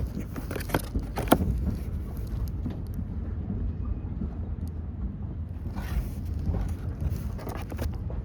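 Low steady rumble of a moving vehicle, with scattered clicks and knocks, one sharper knock about a second in.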